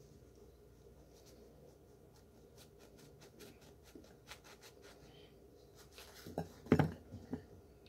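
Faint scratchy rubbing and small crackling clicks of fingers working a baked brick of cornstarch in its paper-lined container. A few louder, dull sounds come about six seconds in.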